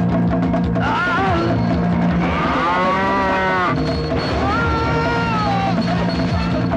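A bull bellowing three times, the middle call the longest, over a dramatic film score with a low drone and drums.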